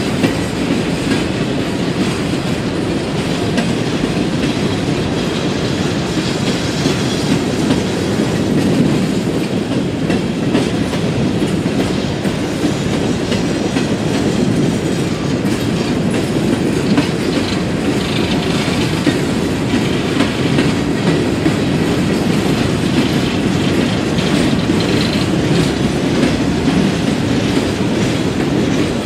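Empty CSX coal hopper cars of a freight train rolling past at a steady speed: a continuous low rumble of steel wheels on rail with clickety-clack over the rail joints.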